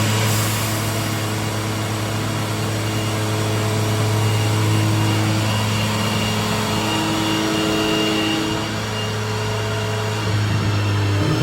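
Toyota Starlet Glanza's 1.3-litre 4E-FTE turbocharged four-cylinder engine, freshly rebuilt with forged internals, running steadily at an even engine speed.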